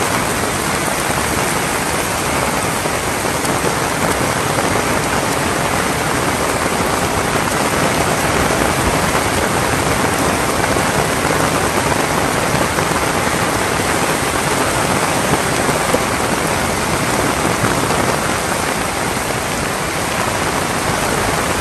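Heavy rain falling steadily: a dense, even hiss of rainfall.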